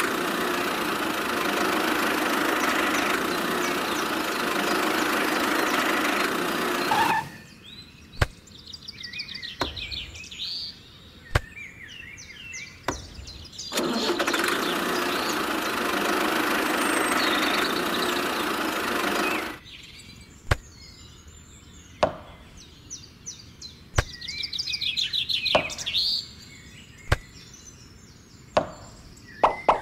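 Toy tractor engine sound running steadily twice, about seven and five seconds long. In between, birds chirp and small white pebbles give sharp single clicks as they are set down.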